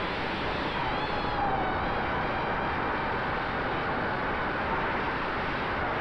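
FPV drone's electric motors and propellers whirring in flight: a steady rushing noise with faint whining tones that shift up and down in pitch.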